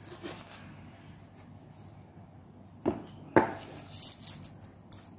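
Handling noise from a chrome-cased wrist laser device and its fabric hook-and-loop strap: two sharp clicks a little under three seconds in, then a short rustle of the strap, and another click near the end.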